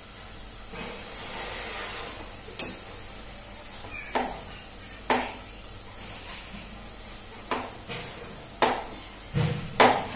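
Kitchen knife cutting potatoes on a cutting board: about seven irregular sharp knocks, the loudest near the end, over a steady low sizzle of onions frying in oil.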